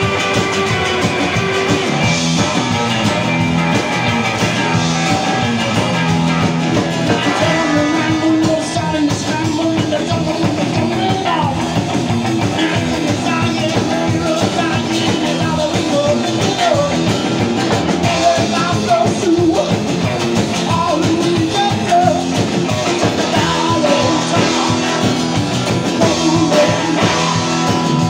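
A live outlaw-country/rock band playing steadily: upright double bass, acoustic guitar, electric guitar and drum kit.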